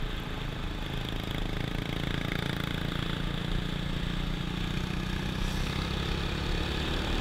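Honda FourTrax 420 ATV's single-cylinder four-stroke engine running steadily at a cruising pace on sand.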